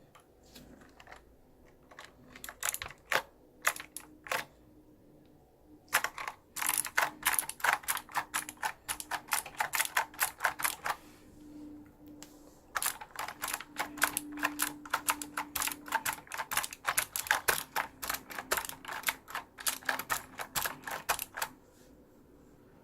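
Computer keyboard keys clacking in quick runs of keystrokes: a few scattered clicks at first, then two long, fast runs separated by a short pause.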